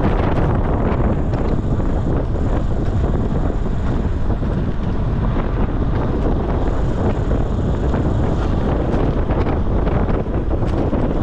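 Steady, loud wind buffeting the microphone of a bicycle descending at speed, with a faint high-pitched whine coming in twice.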